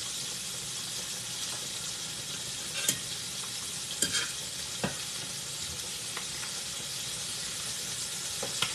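Chicken legs frying in hot oil in a skillet, a steady sizzle. A few sharp clicks come through it as a metal fork turns the pieces in the pan.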